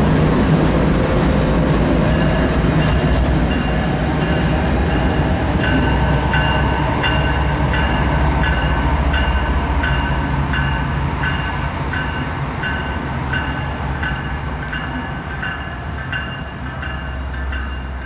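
Norfolk Southern diesel locomotives passing close and pulling away, a deep steady rumble that slowly fades. From about two seconds in, a bell rings steadily, a little more than once a second.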